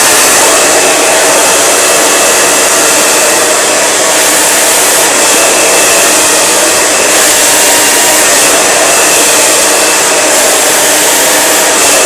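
Handheld hair blow dryer running steadily: a continuous rush of air with a faint motor whine.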